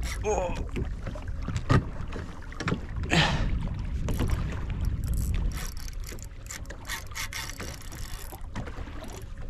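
Wind on the microphone and water lapping against a small boat's hull, with scattered clicks and knocks as a fishing rod is handled with a fish on.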